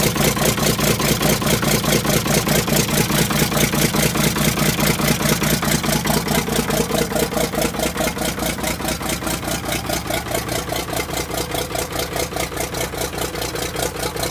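Allis-Chalmers D17 Diesel tractor's six-cylinder diesel engine idling shortly after a cold start, with a steady, even pulsing beat.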